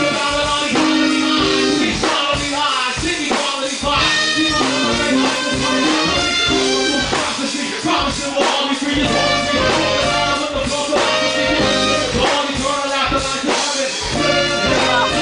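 Live hip-hop with a band, loud and steady: a rapper on the microphone over drums, bass and saxophone.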